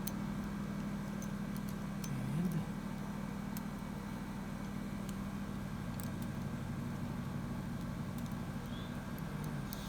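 A steady low mechanical hum, with a few faint metallic clicks as a small screwdriver works a spring keeper out of the groove in a chainsaw's sprocket shaft.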